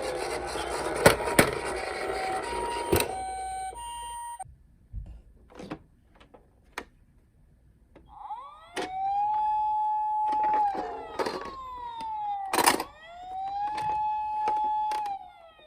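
Toy ambulances' electronic sirens. First a two-tone siren alternating between two notes over the rattle of the toy rolling, with a few clicks, cutting off about four seconds in. After a short lull a second siren sweeps up, holds, falls and sweeps up again, with a sharp click near its middle.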